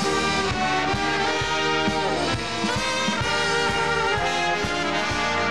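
A big band plays an instrumental break with no singing: brass and saxophones carry the melody over an upright bass that keeps a steady beat of about two notes a second.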